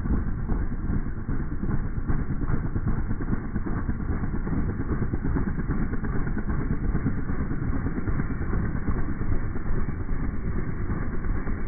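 Firefighting helicopter hovering low, its rotor and engine making a steady, heavy, low noise with a rapid flutter.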